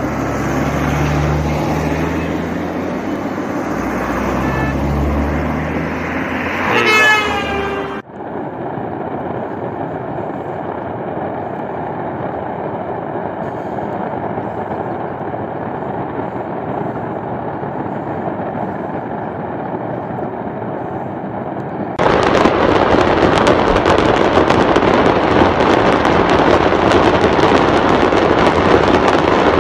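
Outdoor sound from phone recordings near a fireworks blast site. First there are vehicle sounds, with a horn sounding briefly about seven seconds in. Then a steady rushing noise, and from about twenty-two seconds a louder, dense, even noise.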